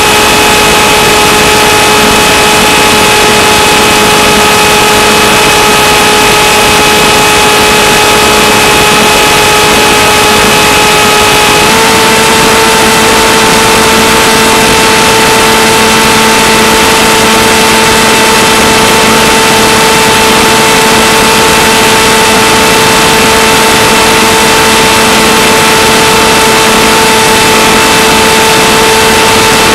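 Electric motor and propeller of a Skywalker FPV plane, heard through the onboard camera's microphone: a steady whine under a loud hiss, flying under return-to-home autopilot. The whine steps up slightly in pitch about twelve seconds in as the throttle rises.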